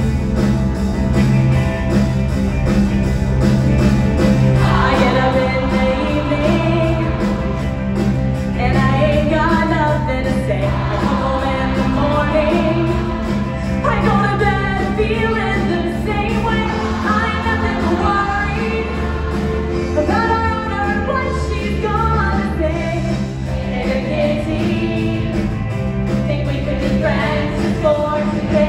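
Music with a group of women singing over it; the singing grows strong about five seconds in.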